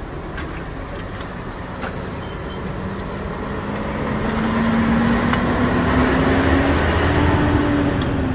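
Roadside traffic rumble, with a passing motor vehicle's engine note rising slowly in pitch and growing louder through the second half.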